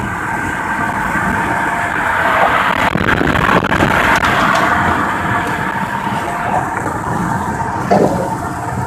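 Wind and road noise inside a car driving at highway speed, a steady rush that swells about three to five seconds in. A short thump comes near the end.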